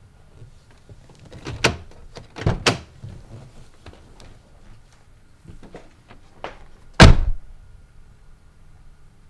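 A door being handled: clicks and knocks as it is unlatched and opened, then slammed shut about seven seconds in. The slam is the loudest sound.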